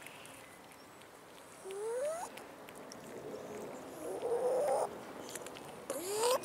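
Stray domestic cat giving short rising meows while eating, twice: once about two seconds in and again near the end, with a rougher, noisier sound between them.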